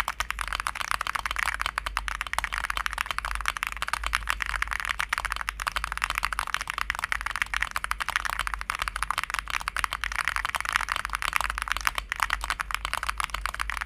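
Continuous fast typing on a mechanical keyboard, a dense run of key clacks several strokes a second.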